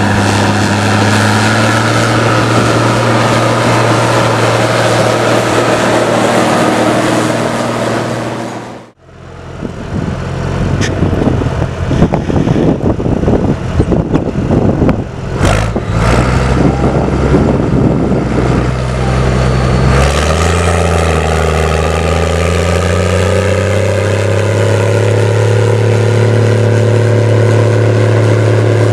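Case IH 1455 XL's six-cylinder diesel running hard through its straight stainless exhaust stack while pulling a deep-set subsoiler. The note is steady at first. After a sudden break about a third of the way in it sounds rougher, with irregular crackle, then rises in pitch about two-thirds in and holds steady under load.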